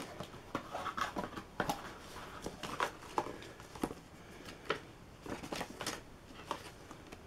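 Paper and cardboard being handled: a printed card sleeve unfolded and cards and a pamphlet lifted out of a cardboard box, giving irregular rustles, light taps and scrapes.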